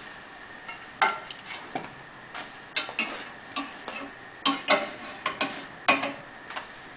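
Pancakes frying in butter in a pan with a faint steady sizzle, while a spatula flips them: a string of short scrapes and taps against the pan, about fifteen of them starting about a second in.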